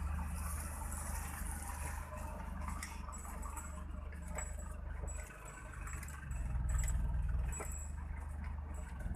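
Vehicle on the move: a steady low rumble of engine and road noise with a hiss of wind over it, dipping briefly a little after the middle.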